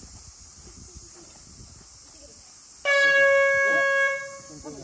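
A single loud horn blast: one steady tone that starts abruptly about three seconds in, holds for about a second and a half, and fades out.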